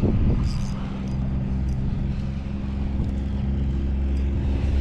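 An engine running steadily, a low drone with several unchanging tones that holds level throughout.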